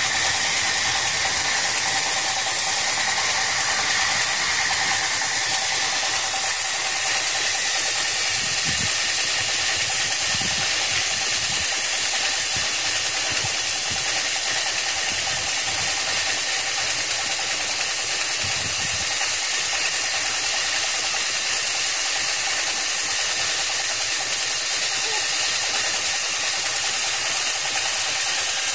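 Horizontal band sawmill running: a steady, loud hiss with a high whine from the band saw and its drive.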